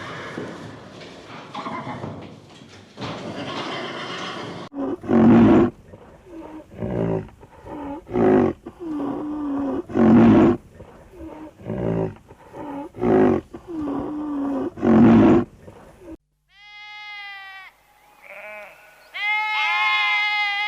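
A camel's loud, low calls, repeated about nine times, after a few seconds of rough noise. Near the end a cut to sheep bleating.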